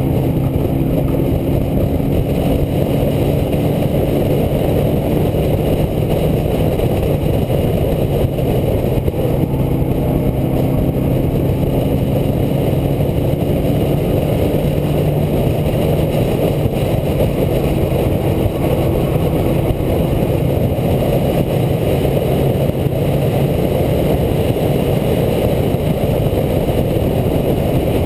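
A Mighty Truck race truck's engine running hard at racing speed, picked up by the truck's own onboard camera. A loud, steady drone with a heavy low rumble, its pitch shifting slightly through the laps.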